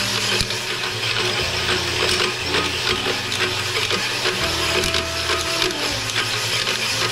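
Cylinder hone spinning on a long drive rod inside the cast-iron steam cylinder of a Westinghouse locomotive air compressor, a steady grinding and clattering of the stones against the bore.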